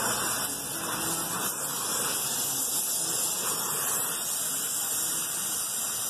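Brazing torch flame hissing steadily as it heats a copper refrigerant line joint, with brazing rod being melted into the fitting.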